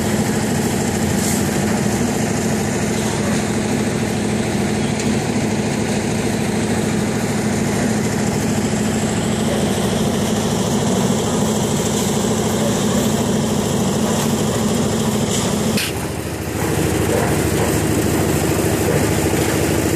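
Small engine of concrete-pouring machinery running steadily at a constant speed, with a short dip about sixteen seconds in.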